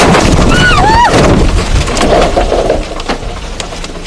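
Trees cracking and crashing down, wood snapping and splintering loudly. A person in the car gives a short two-part cry about half a second in, and the din eases after about three seconds as branches come down over the car.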